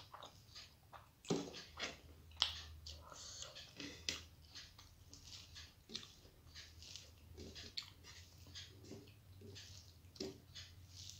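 Eating sounds: fingers squishing and mixing rice on a plate, and chewing with soft, irregular wet mouth clicks, over a faint steady low hum.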